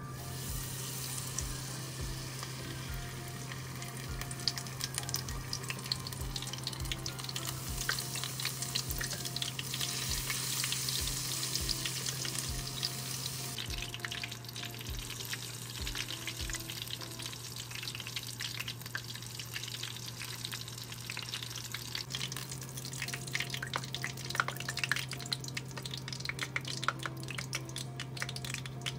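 Tempura-battered shrimp deep-frying in hot oil: a dense, steady sizzle full of fine crackles, thickest about ten seconds in. Soft background music plays underneath.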